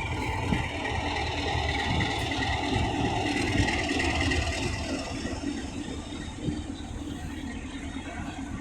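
Locomotive-hauled train running through the station, a steady rumble that fades gradually over the last few seconds.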